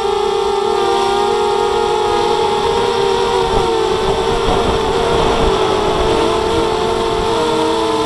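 Multirotor drone's electric motors and propellers whining steadily, heard from on board. Several close tones waver and shift slightly in pitch as the throttle changes.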